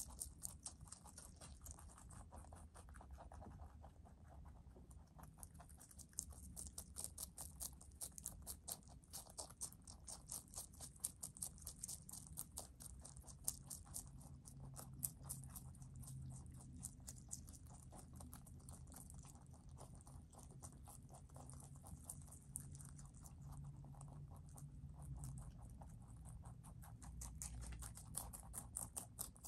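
Two rabbits chewing leafy greens (lettuce, collard greens and parsley): a quiet, rapid run of crunching clicks, densest through the middle.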